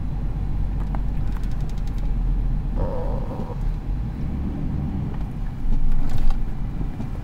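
Motor vehicle running, a steady low rumble of engine and road noise that swells louder about six seconds in.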